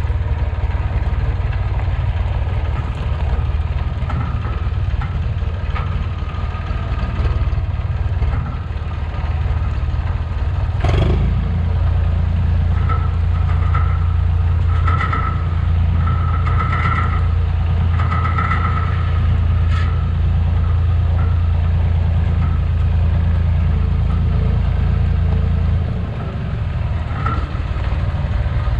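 Massey Ferguson 245 orchard tractor engine running steadily as it is driven. A single knock comes about eleven seconds in; the engine's low note is then stronger until near the end, with a few short squeaks in between.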